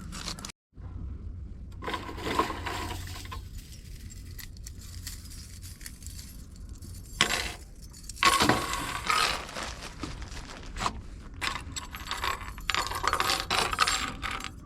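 Camping gear being handled and set out by hand: irregular small metallic clinks, knocks and scrapes with rustling, in several busier stretches.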